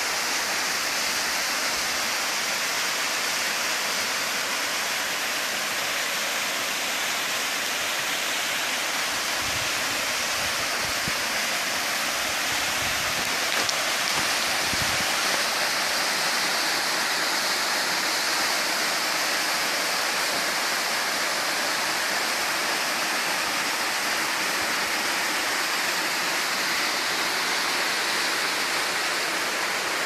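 Small waterfall cascading down a rock face into a pool: a steady, even rush of falling water.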